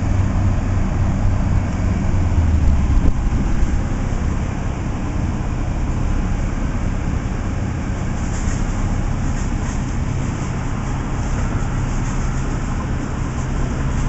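Steady low rumble of a heavy vehicle's engine running, with street traffic noise around it.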